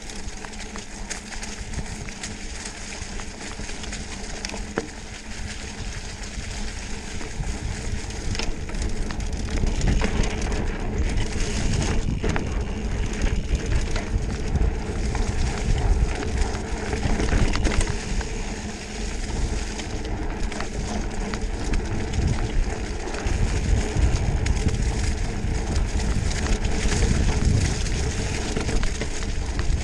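Mountain bike riding fast over a leaf-covered dirt trail: wind buffeting the microphone with a low rumble, tyres rolling over the ground, and frequent small knocks and rattles from the bike over bumps. The rumble grows louder about a third of the way in as the speed picks up.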